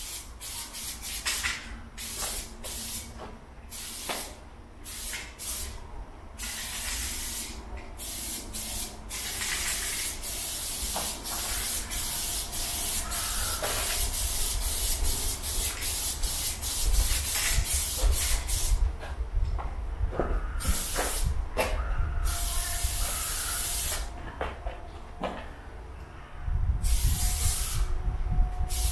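Aerosol spray-paint can hissing as red paint is sprayed onto a concrete wall, in many short bursts at first, then in longer steady sprays.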